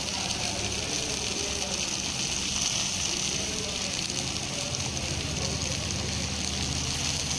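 Fish frying in oil on a flat tawa, sizzling steadily over a low, steady hum.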